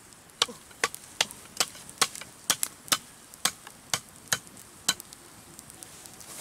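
A knife chopping with sharp, regular strokes, about a dozen at two to three a second, stopping about five seconds in.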